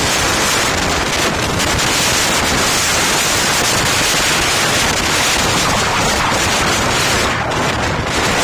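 Wind buffeting the microphone of a moving motorcycle, a loud, steady rush of noise.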